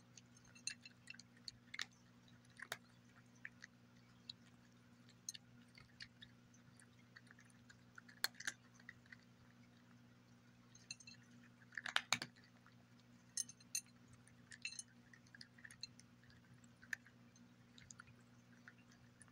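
A cat chewing dry kibble from a glass saucer: irregular sharp crunches and clicks, loudest in a quick cluster about twelve seconds in.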